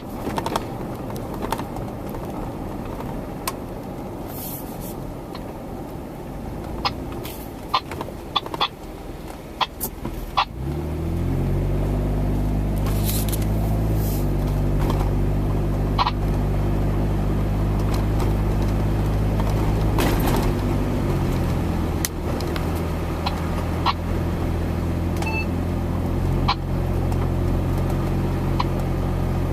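An engine starts about ten seconds in, rising briefly in pitch, then runs steadily; before it starts there are scattered clicks and knocks.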